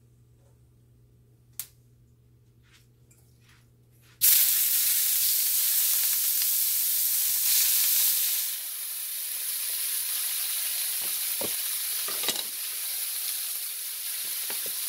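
Raw chicken pieces going into hot oil in a wok: after a few quiet seconds with a faint hum and a single click, a loud sizzle starts suddenly about four seconds in. It eases slightly a few seconds later and carries on steadily, with a few light knocks near the end.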